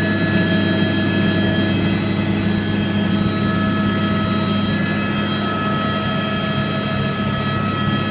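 Steady drone of a helicopter's engine and rotors heard from inside the cabin in flight: a low hum with a steady high whine over it.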